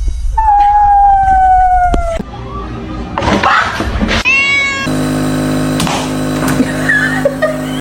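A cat meowing: one long, drawn-out meow that sinks slowly in pitch, then a shorter meow about four seconds in. A steady drone with a few clicks follows in the second half.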